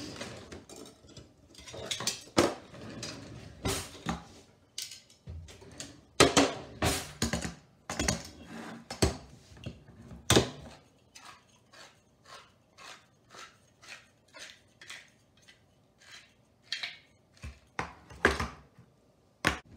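Metal utensils clattering as a kitchen drawer is rummaged, then a manual can opener being cranked around the rim of a small steel tuna can, clicking evenly about twice a second, with a few louder clicks near the end.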